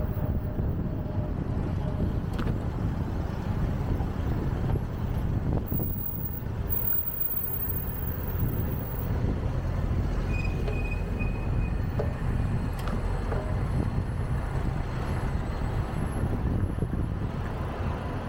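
Road traffic on a busy city street: a steady low rumble of passing cars and other vehicles. A brief high-pitched tone sounds a little over ten seconds in.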